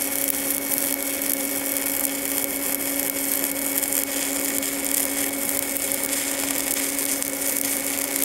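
Stick (SMAW) welding with a 1/8-inch 7018 electrode at 100 amps on carbon steel pipe: the arc gives a steady crackling hiss as a fill pass is run. A steady low hum sits under it.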